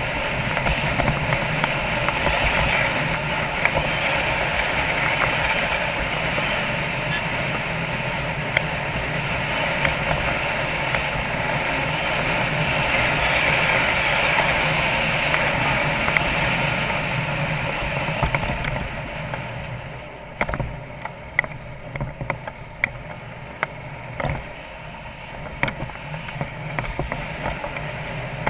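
BMW F650GS Dakar's single-cylinder engine running while the motorcycle rides a gravel track, with wind and road noise. About two-thirds of the way through it gets quieter, and sharp clicks and knocks come through.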